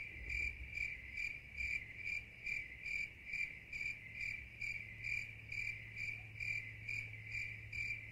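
A cricket chirping in an even, unbroken rhythm, about two and a half chirps a second, quietly over a faint low hum.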